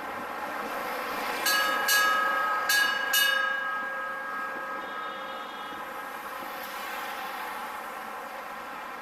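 A bell struck four times in two quick pairs, in the ship's-bell pattern, its ringing tone fading away over a few seconds. Steady road traffic hums underneath.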